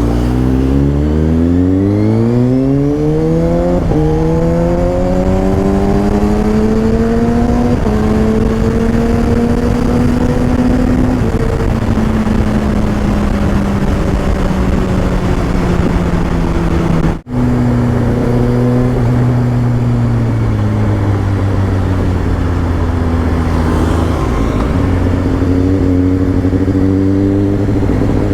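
Kawasaki ZX6R inline-four engine pulling hard up through the gears, the pitch climbing, dropping at a shift about 4 s in and climbing again, then settling to a steady cruise over wind rush. The sound cuts out for a moment near the middle, then the engine runs on at a lower, steady pitch.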